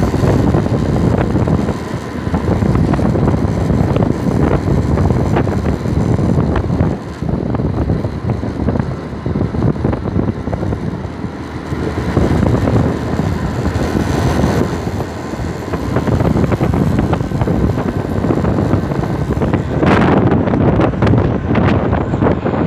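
Wind buffeting the microphone of a phone mounted on a moving Honda motorcycle, a heavy fluctuating rush with the bike's engine running underneath. Near the end the noise gets louder and brighter as the phone is moved about.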